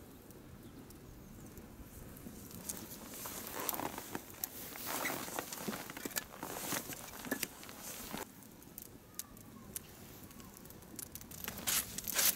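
Freshly lit birch logs catching in an outdoor fire pit: irregular crackling and snapping, busiest through the middle. Near the end, crunching footsteps in snow join in.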